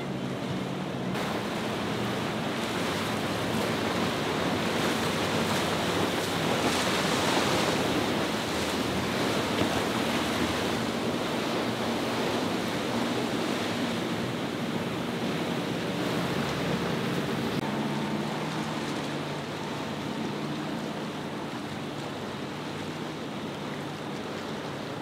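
Rough water and breaking waves washing in an ocean inlet, with wind on the microphone and the low steady hum of passing powerboat engines underneath. The rush of water swells about six to nine seconds in, and the engine hum stands out again around fifteen to twenty seconds in.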